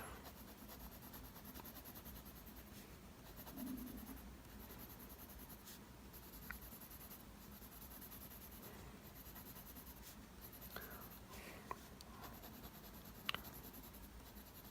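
Faint scratching of a mechanical pencil's lead across drawing paper, in stretches of shading strokes that start and stop, with a few small ticks.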